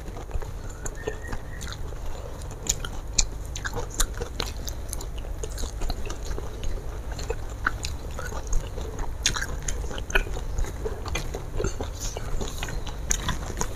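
A person chewing a mouthful of rice, fried fish and raw vegetables close to the microphone: frequent short crunches and wet mouth clicks, over a low steady hum.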